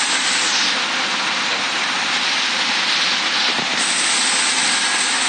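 Heavy rain pouring down hard, a loud steady hiss.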